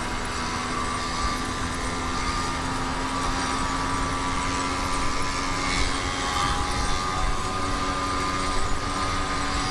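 YD100 two-stroke engine on a motorized bicycle running at a steady speed while ridden, its pitch holding nearly level.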